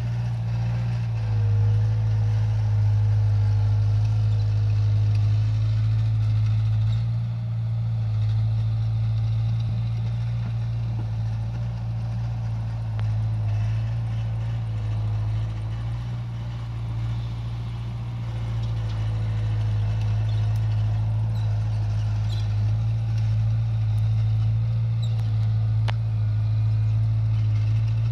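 A steady low engine drone with a faint thin whine above it.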